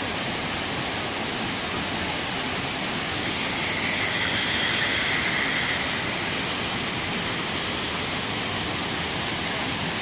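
Waterfall pouring onto rocks: a steady rush of falling water, a little louder for a couple of seconds around the middle.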